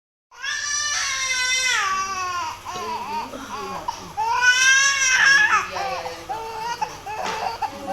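Baby crying hard, in long high cries that hold and then drop in pitch. The loudest cry comes about halfway through.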